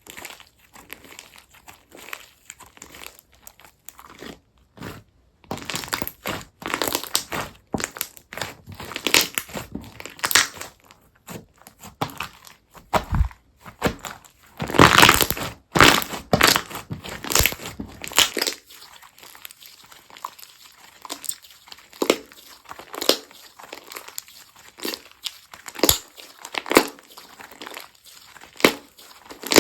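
Hands squeezing and pressing a crunchy slime, giving a dense stream of crinkling crackles and pops. The crackles are busiest and loudest around the middle and grow sparser in the last third.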